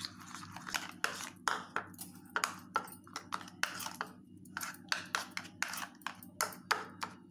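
Metal spoon clinking against a ceramic bowl, about two or three quick taps a second, as it stirs a thin maida flour-and-water paste smooth of lumps.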